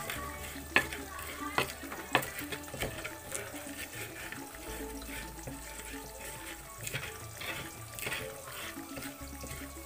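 Stone pestle crushing and grinding chilies and garlic in a shallow clay mortar (ulekan and cobek), rubbing with a few sharp knocks of stone on clay in the first three seconds. A steady sizzling hiss of tofu frying in oil runs underneath.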